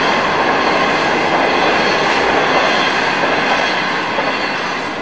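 Train passing on an elevated track, a steady rush of wheel and rail noise that slowly fades.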